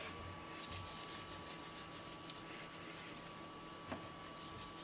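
Quiet salting of a stew: fingers pinch coarse salt from a small glass jar and sprinkle it into the pot, giving only a faint rustle. A thin steady whine sits underneath, and there is one small click about four seconds in.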